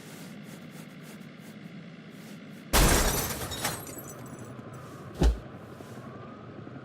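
A sudden loud crash that dies away over about a second, followed about two and a half seconds later by a single short bang, over a steady hiss.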